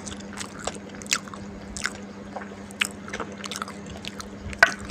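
A person chewing a mouthful of fried kwetiau (flat rice noodles), close to the microphone, with irregular wet smacks and clicks of the lips and tongue; the sharpest smack comes a little before the end.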